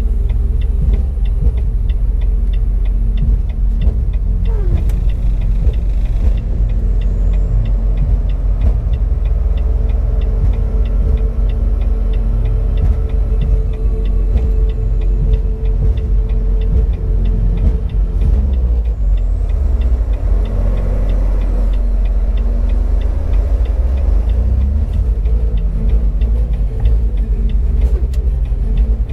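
Semi truck cab interior while driving: a steady, loud, low engine and road rumble.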